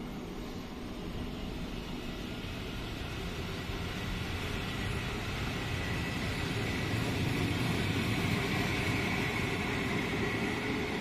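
PKP Intercity passenger coaches rolling past as the train pulls out, a steady rush of wheel and rail noise with a high whine. It grows louder in the second half as the last coach passes close.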